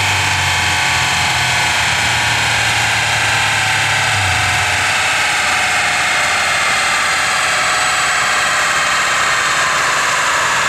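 2015 Polaris Slingshot's four-cylinder engine running on a chassis dyno: a loud, steady drone whose pitch drifts slowly lower. A low hum underneath stops about four seconds in.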